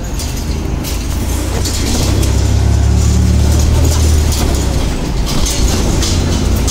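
A car's engine and road noise heard from inside the cabin while driving: a steady low drone that swells about two seconds in and eases a little near the end, with tyre hiss above it.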